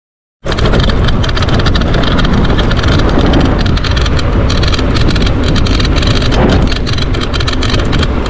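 Mountain bike being ridden over rough ground, with heavy wind buffeting the microphone: a loud low rumble and a constant rapid rattle of clicks that cut in abruptly about half a second in.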